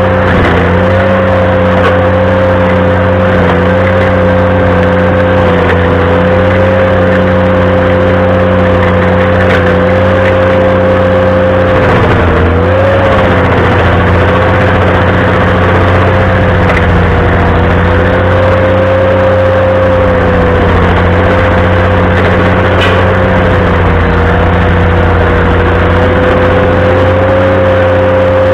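Ventrac compact tractor running at high throttle, driving its stump grinder attachment: a steady engine drone with a strong whine on top. The pitch dips briefly about twelve seconds in and recovers, as the grinder takes load.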